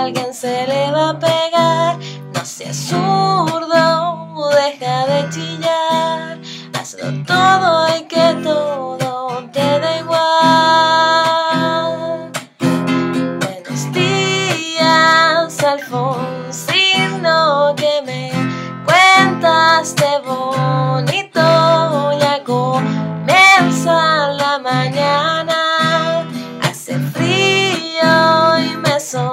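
A woman singing a song in Spanish to her own acoustic guitar, strumming chords in a steady rhythm.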